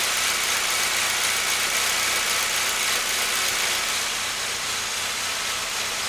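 2008 Saab 9-3 2.0T turbocharged four-cylinder engine idling steadily. It runs smoothly, with no misfire felt despite its random-misfire code.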